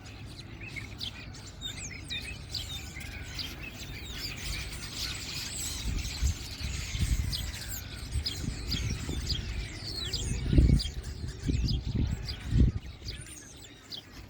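Many small birds chirping at once, a dense chorus of short high calls overlapping throughout. Several low thumps come in the second half, the loudest about two-thirds of the way through.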